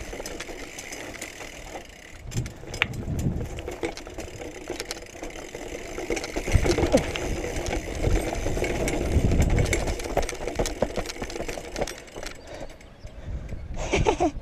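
BMX bike rolling over a rough gravel and rock path: tyres crunching on loose stones and the bike rattling with many quick clicks. Low rumbling surges come and go, the loudest about two-thirds of the way through.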